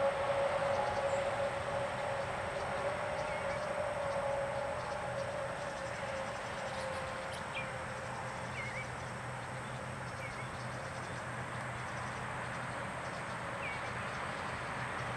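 Steady outdoor background noise with a long steady tone that fades out over the first few seconds, and a few faint, short bird chirps scattered through the second half.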